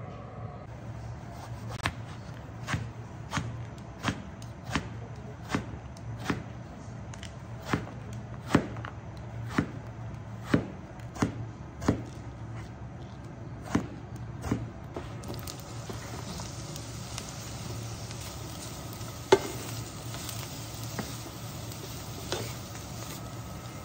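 Kitchen knife chopping eggplant on a cutting board, about fifteen sharp strokes at roughly one a second. About two-thirds of the way through this gives way to eggplant sizzling in a frying pan, stirred with a wooden spatula that knocks now and then.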